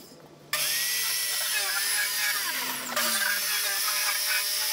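Handheld circular saw starting up about half a second in, then running with a steady whine as it rips a long cut through a sheet.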